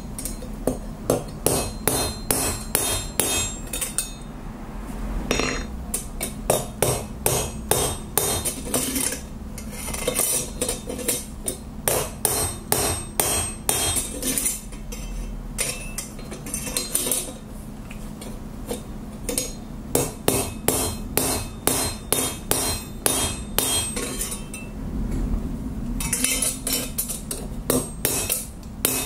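Hand hammer striking a steel bar on an anvil, with ringing metallic blows about two to three a second. The blows come in runs broken by short pauses while the bar is bent to shape.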